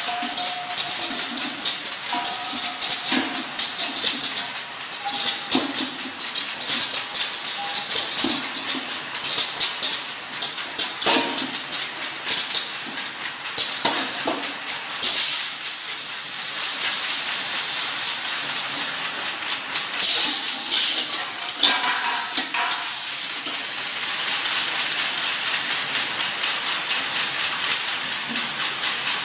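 Automatic LPG cylinder filling line at work: fast clicking and rattling from the filling heads and conveyor, broken by sharp hisses, with one long steady hiss around the middle.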